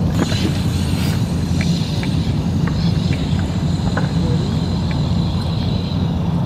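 Steady low rumble throughout, with the faint high whine of a distant RC monster truck's brushless motor that fades out about five seconds in, and a few faint ticks.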